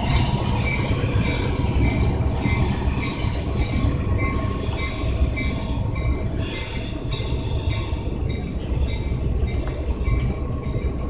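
Kansas City Southern de México diesel locomotives running light, with no train behind them, moving away along the track: a steady low engine rumble and rail noise, gradually fading. A short high note repeats at regular intervals over the rumble.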